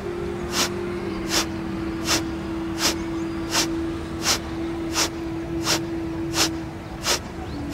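Kapalabhati breathing: short, forceful exhalations puffed out through the nose by snapping the belly in, each a sharp hiss, about ten evenly spaced, one every three-quarters of a second, with the inhalations passive and unheard. A steady held music tone sounds underneath, stepping slightly lower about a second in.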